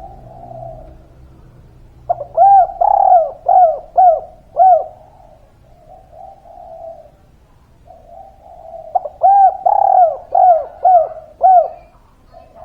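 Spotted dove (derkuku) cooing: two loud phrases of repeated arching coo notes, the first about two seconds in and the second about nine seconds in, with softer, lower coos between them.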